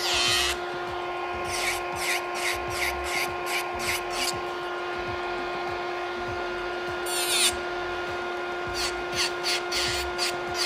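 Electric nail file with a ceramic bit grinding on a gel-and-acrylic nail in short repeated passes, about two or three a second, with a pause in the middle, over a steady motor whine. The passes are filing through the smile line to sharpen it.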